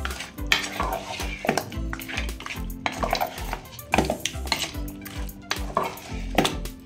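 A spoon stirring and scraping inside a metal pressure cooker, mixing mutton chops with spices, with a sharp scrape or knock about once a second. Background music plays underneath.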